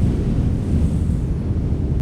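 Wind blowing steadily with a deep low rumble as it hits the microphone.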